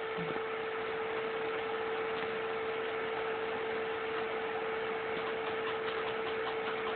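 Salvaged scanner stepper motors driving a homemade robotic arm, whining with one steady tone as the arm slowly moves, with faint ticking in the last couple of seconds.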